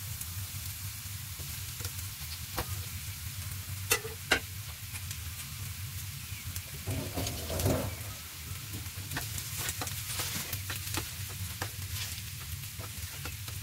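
Boiled potatoes being stirred and mashed with a steel spatula into onions frying in a pan, over a low sizzle. There are two sharp knocks about four seconds in, and many small taps and scrapes of the spatula in the second half.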